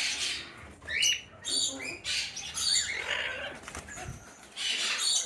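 A flock of parrots chirping and squawking in short, scattered calls, several birds overlapping.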